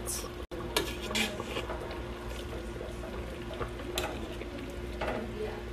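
Slotted spoon moving through broth in a stainless steel stockpot, with liquid sloshing and a few sharp clinks against the pot, over a steady hum.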